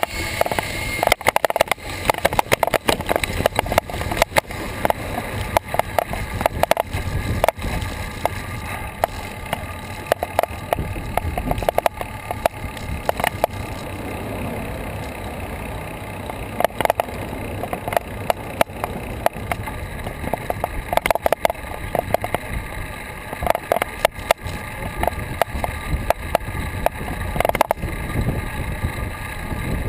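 Riding noise picked up by an action camera mounted on a road bike: a steady rush of tyres and air with frequent irregular knocks and rattles as the bike rolls over the pavement.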